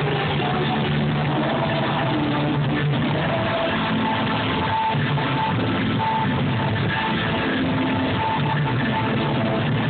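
Live rock band playing loud, with guitars, a steady dense wash of sound and a recurring high held note over sustained low notes, as heard from within the concert audience.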